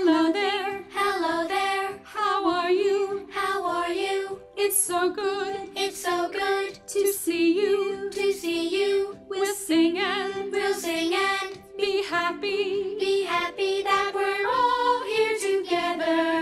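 A woman singing a simple children's action song on her own, in short phrases of about a second with brief breaks between them.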